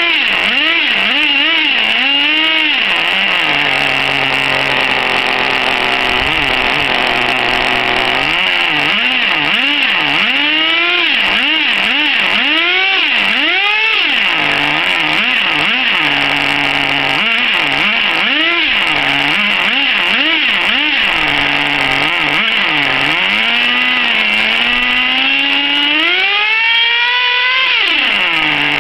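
Exceed Infinity nitro RC truck's small two-stroke glow engine running with a high whine as it is warmed up, revved up and down in quick blips about once a second. It settles to a steadier idle for a few seconds at a time and holds one long high rev near the end.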